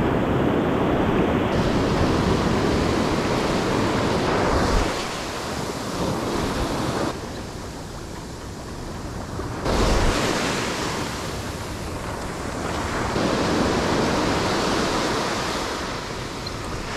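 Ocean surf breaking and washing up a sandy beach, a steady rush that swells and eases as each wave comes in and draws back.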